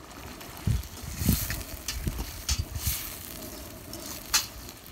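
Metal utensils stirring a simmering curry in a stainless steel pot, scraping and clinking against the pot about five times over a steady background hiss.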